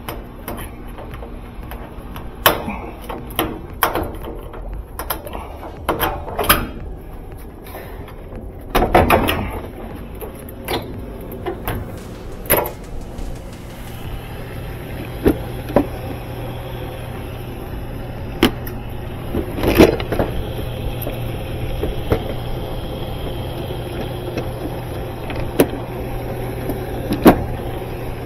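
Irregular knocks, clicks and clatter of a washing machine's sheet-metal cabinet and plastic top being pried and lifted by hand, some of them sharp and loud. About halfway through a steady low hum starts and keeps going underneath.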